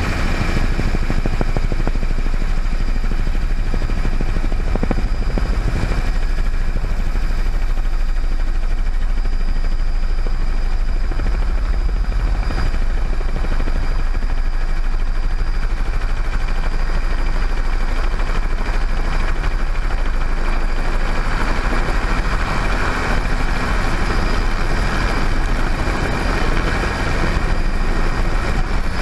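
Bell 206 JetRanger helicopter running steadily: a deep rotor drone under a thin, high turbine whine from its Allison 250 turboshaft.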